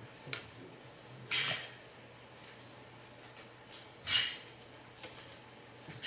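Two short hissing sprays about three seconds apart, with light clicks and taps of handling between them, during fuel injector cleaning.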